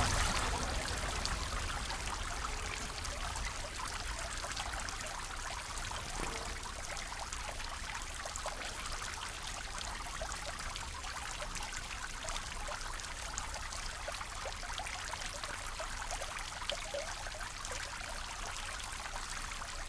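Steady trickle and splash of running water.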